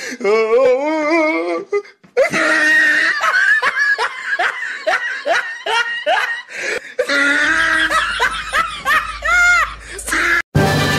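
People laughing hard in quick, repeated bursts, breaking off abruptly near the end.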